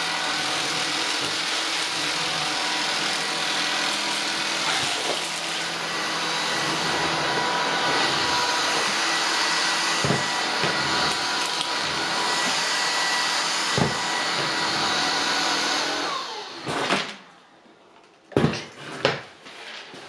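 Shark IZ320EUT cordless stick vacuum running steadily with its DuoClean floor head on a laminate floor while it picks up coarse grit, with a few sharp clicks along the way. The running stops about 17 seconds in, and a few knocks follow.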